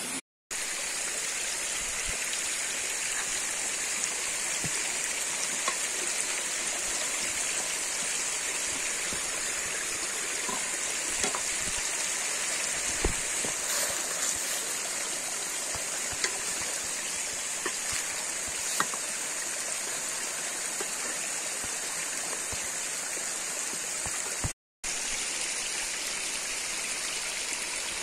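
Stream water rushing steadily, with a few faint clicks and knocks on top; the sound cuts out for a moment twice.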